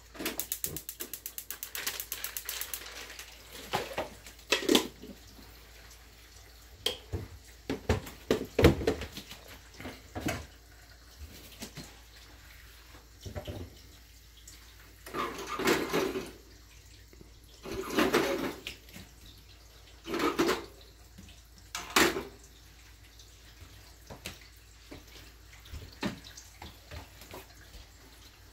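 A fast run of clicks for the first few seconds, then scattered knocks and clinks of kitchen utensils, with a kitchen tap running in four short spurts.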